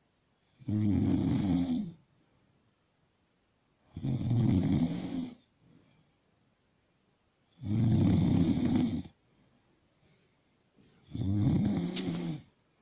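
Snoring: four long, rasping snores about three and a half seconds apart, with near quiet between them. There is a brief sharp click during the last snore.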